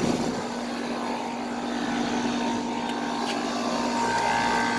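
1999 Carrier 38CKC 4-ton air conditioner condensing unit running: a steady low compressor hum over the rush of the condenser fan, with a higher whine coming in about four seconds in. The compressor sounds really bad and strained, which the owner takes for a compressor that is overheating.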